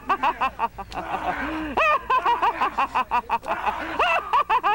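Several men's voices whooping, hollering and cackling with laughter in quick, high-pitched cries that rise and fall.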